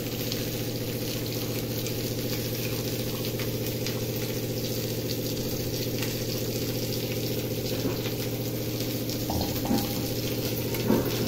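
Water poured in a steady stream from a steel vessel into an aluminium pot of fried chickpea-and-tomato masala, over a constant low hum. A few short knocks near the end.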